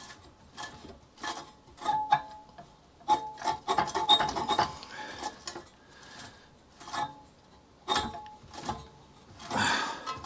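Hand-turned 1930s Ransomes Atlas Mk1 cylinder lawnmower: irregular metal clicks from its drive, each with a brief ring, and a scraping rub twice, about four seconds in and near the end. The drive on that side is not turning the cylinder.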